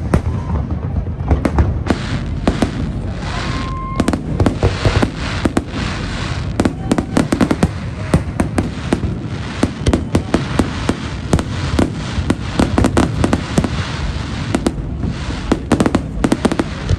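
Fireworks display going off in a rapid, continuous barrage: many sharp cracks and crackling over a steady low rumble of booms.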